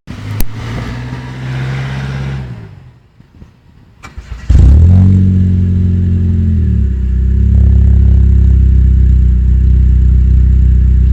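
Chevrolet Celta 1.0 VHC four-cylinder engine running through a cold air intake and an exhaust with no intermediate muffler and a large rear muffler. It runs briefly and dies away about three seconds in, then starts again with a sudden burst of revs about four and a half seconds in and drops to a steady, rumbling idle.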